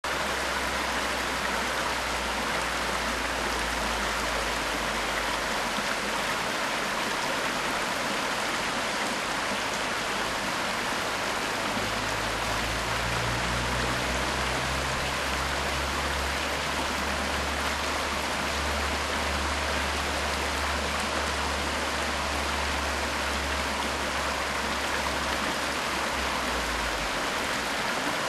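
Shallow creek flowing over rocks: a steady, unbroken rush of running water.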